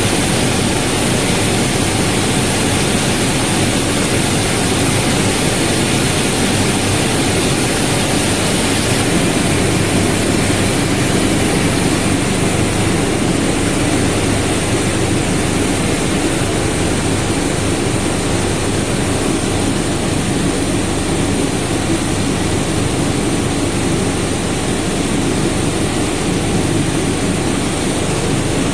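Rice crispy ball production line machinery running: a loud, steady noise with a thin high whine on top.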